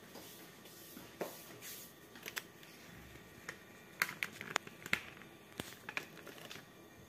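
Scattered light clicks and taps, a few at first and then a quicker cluster about four seconds in.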